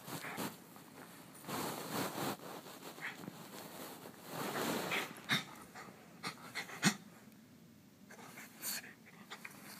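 A small dog panting in breathy bursts at close range, with a few sharp clicks in the middle.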